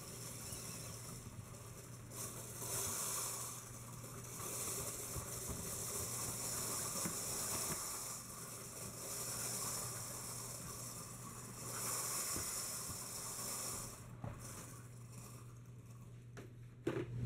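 A clear acrylic BB-8 sphere turning on the heavy-duty transfer wheels of its test stand, driven from inside by omni-wheels, with a faint rushing hiss that swells and fades every two to three seconds over a steady low hum. The hiss comes from the transfer wheels' bearings, which are very loud, not from the drive, which runs nearly silent.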